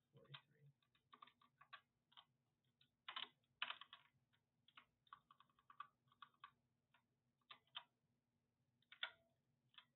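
Computer keyboard keys typed in short, irregular bursts of faint clicks, with the busiest cluster about three to four seconds in.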